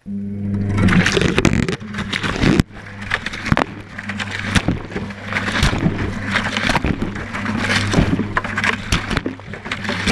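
Whirlpool Indiana 1400 washing machine drum tumbling in a wash cycle, heard from inside the drum: a steady motor hum starts suddenly, with water sloshing and splashing and the wet load knocking as it falls.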